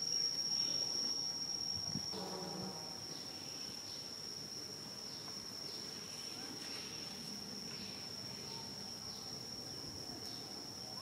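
Steady high-pitched insect drone, one unbroken tone throughout, with a brief pitched call about two seconds in.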